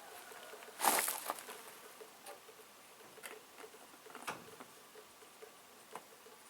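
Engine oil dripping out of a Lifan engine's drain hole into a container as the sump empties after a flush: a light, irregular patter of drops, with a brief louder clatter about a second in.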